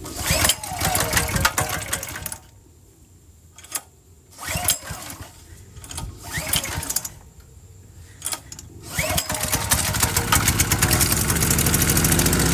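3400-watt inverter generator being pull-started after its carburetor was cleaned: several pulls on the recoil starter in short bursts, then the engine catches about nine seconds in and keeps running evenly.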